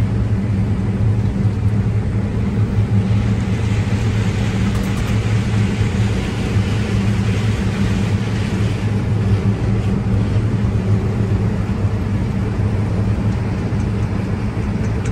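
New Holland combine harvester running steadily during corn harvest: a constant low engine-and-machinery drone. A higher hiss swells for several seconds in the middle.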